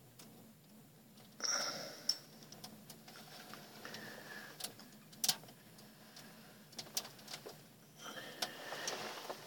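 Faint, scattered clicks and a few short rustling noises from a fishing rod and reel being worked while a pike is played up through the ice hole.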